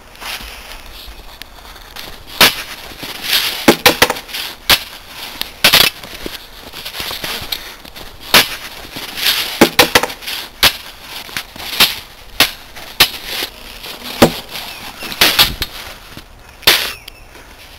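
Swords clashing in a fight: irregular sharp strikes, about one a second, some leaving a short metallic ring.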